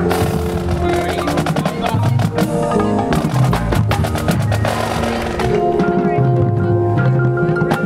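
Marching band with drumline and front-ensemble mallet percussion playing a fast passage of rapid percussion strokes, then a held chord over the percussion from about five and a half seconds in.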